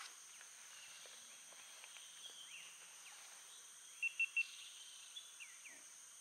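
Swamp ambience: a steady high insect drone with scattered short bird chirps. Three quick high pips about four seconds in are the loudest sound.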